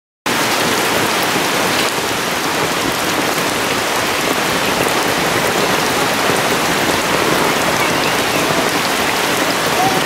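Steady heavy rain falling, an even hiss of rain on the ground and leaves that starts abruptly just after the beginning.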